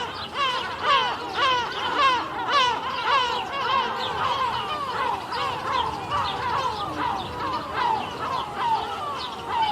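A flock of seagulls giving warning calls: many short, bent squawks overlapping, several a second, with no break.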